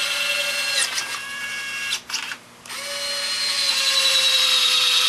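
Small DC gear motor driving the jack-screw actuator of a converted Robart 630 retract, whining as it moves the landing gear. The whine breaks off just under a second in and stops again for most of a second around two seconds, then starts again with its pitch slowly falling.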